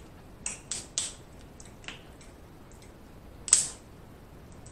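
Cooked snow crab legs being cracked and snapped apart by hand, close to the microphone. There are three quick shell cracks in the first second, a fainter one near two seconds, and the loudest crack about three and a half seconds in.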